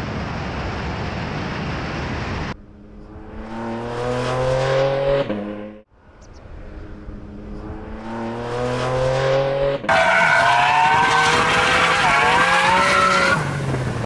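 Porsche 718 Cayman GT4 RS's naturally aspirated flat-six at full throttle on a race track. A steady rush of noise opens, then the engine climbs in pitch twice, with a sudden drop between as it shifts up. Near the end comes a louder stretch in which the pitch wavers, with tyre squeal as the car corners hard.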